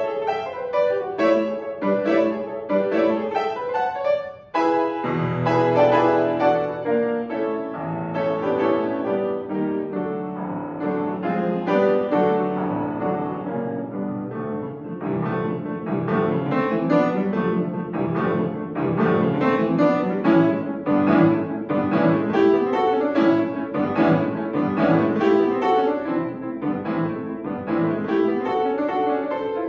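Grand piano played solo in fast, dense runs of notes. About four seconds in it breaks off briefly, then a new passage begins with low bass notes under the melody.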